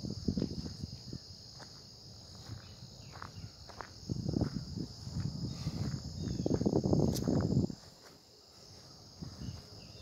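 Insects in the pond-side vegetation keep up a steady high chirring. Over it come bouts of low rustling and rumbling close to the microphone, loudest in the second half and stopping abruptly near the eight-second mark.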